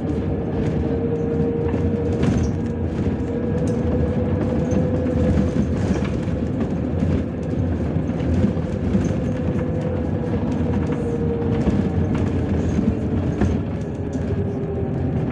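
Inside a MAZ 103 low-floor city bus under way: a steady low rumble of engine and road with scattered rattles and knocks from the body. A steady whine runs over it and drops a little in pitch near the end.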